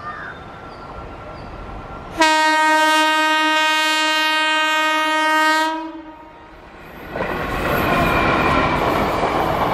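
Indian Railways electric locomotive's horn sounding one long, steady blast about two seconds in, lasting about three and a half seconds over the train's approach. From about seven seconds in, the loud rumble and clickety-clack of the train running past.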